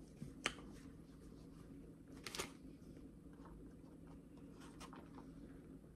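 A few faint clicks and scrapes of an eating utensil against a plastic bowl, with a low steady hum underneath.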